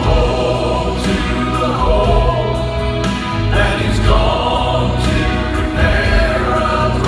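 Gospel vocal quartet singing a hymn in close harmony, with a strong bass part beneath the sustained upper voices.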